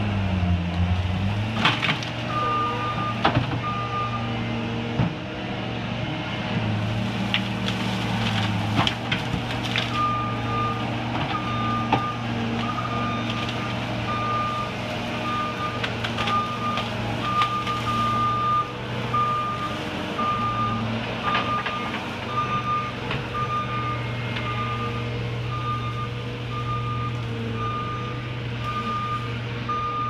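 Compact track loader's engine running under load as it pushes through felled brush, its reversing alarm beeping steadily: briefly about two seconds in, then without a break from about ten seconds in. Occasional sharp cracks and knocks sound over the engine.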